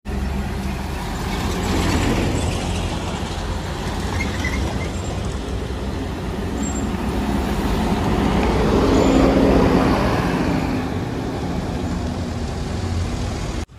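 Intercity bus driving past close by, its diesel engine and tyres swelling to a peak about two-thirds of the way through and then fading, over a steady low traffic rumble.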